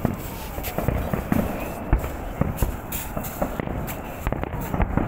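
Fireworks salute: aerial shells bursting in a run of sharp bangs, unevenly spaced at about three a second.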